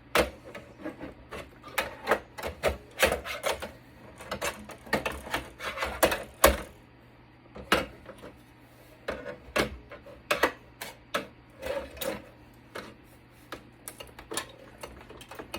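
Irregular clicks, knocks and scraping as a circuit board is worked back and forth to free it from a Cisco Catalyst network switch's casing, catching on something that holds it back.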